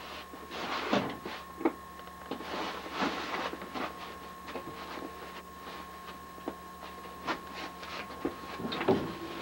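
Scattered light knocks, clicks and rustles of a person moving about and handling things in a small room, over a faint steady electrical hum with a thin whine.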